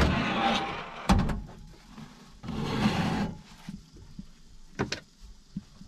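Metal oven door of a galley stove being pulled open: a scraping slide, a sharp clunk about a second in, then a second scraping slide in the middle and a few small clicks near the end.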